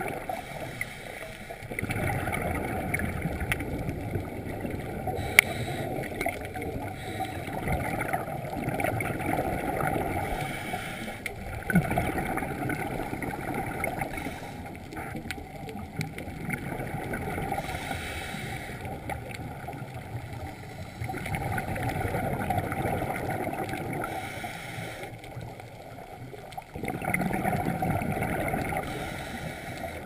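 Underwater sound of a scuba diver's exhaled bubbles rushing and gurgling, swelling and fading in stretches of a few seconds over a low water rumble, with one sharp click about five seconds in.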